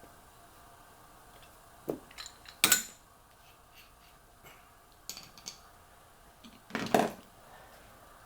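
Metal hand tools and small engine parts clinking and clanking during engine disassembly: scattered sharp clanks, with the loudest about a third of the way in and near the end.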